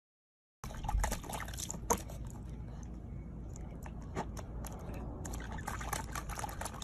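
Corgi puppy with its muzzle in a small plastic tub of water, splashing and slurping, a busy run of wet clicks and splashes that starts about half a second in.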